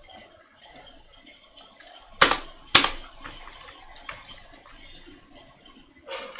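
Computer mouse clicking now and then. Two loud sharp knocks about half a second apart come a little after two seconds in.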